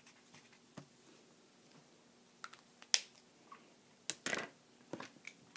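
Scattered sharp clicks and taps of coloured marker pens being capped and handled after writing, the loudest a sharp click about three seconds in and a short clattering cluster about four seconds in.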